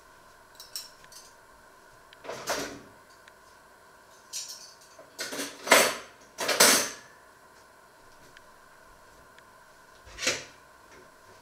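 Kitchen clatter and knocks from someone handling things in a kitchen: about five short bursts, the loudest two close together around the middle.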